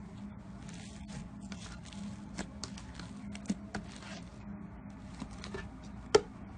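Slime being squeezed and pressed by hand, making irregular small crackles and pops, with one sharper, louder pop near the end.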